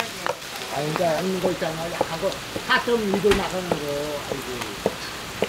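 Pork sizzling on a large iron griddle, with several sharp clicks and people's voices talking over it.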